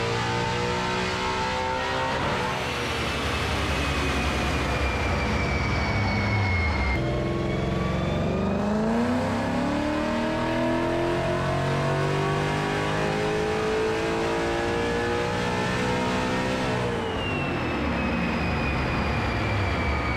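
Supercharged 2012 Ford Mustang Boss 302 with an Aluminator crate V8 and a ProCharger P1X centrifugal supercharger, run on a chassis dyno. The engine runs steadily at first. About seven seconds in it makes a full-throttle pull, the revs climbing for about ten seconds toward its high rev limit. It then lets off, and a high whine winds down.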